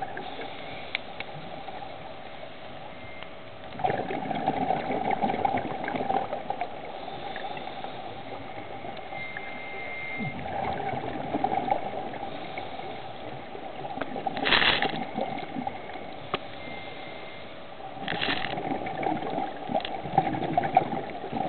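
Scuba diver breathing underwater through a regulator: exhaled bubbles gurgling in long bursts a few seconds apart, with quieter stretches between.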